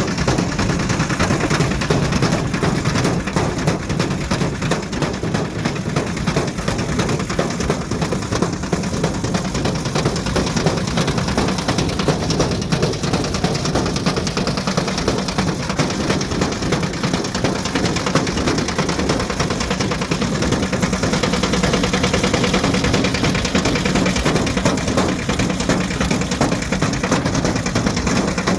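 Ariston Margherita washing machine running with a brick loose in its drum: a steady motor hum under constant rapid knocking and clattering.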